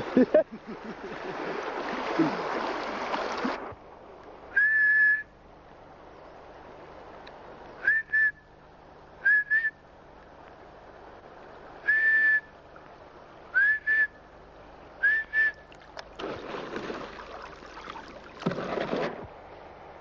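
A series of short, clear whistled notes on one pitch, each with a quick upward start, heard singly and in pairs every second or two. Rushing water and wind noise fills the opening seconds and returns near the end.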